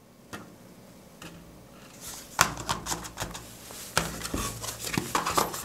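Cardboard phone-box packaging being handled: trays and small inner boxes tapped, pressed and slid, giving a string of light clicks and knocks that thickens about two seconds in.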